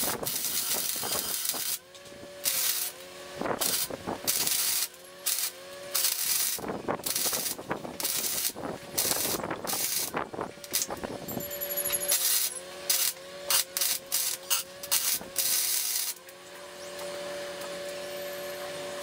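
Electric arc welding on 2x2 square steel tubing: the arc crackles and hisses in a long series of short bursts as he lays stitch welds. The bursts stop about three seconds before the end, leaving a steady hum.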